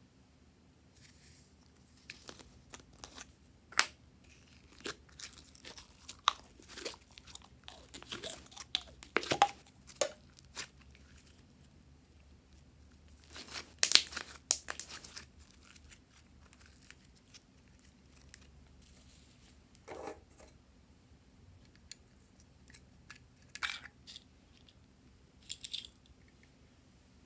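Slime being squeezed and pulled by hand: irregular sticky crackles, squelches and pops, busiest in the first half, with the loudest cluster about halfway through and only a few faint ones near the end.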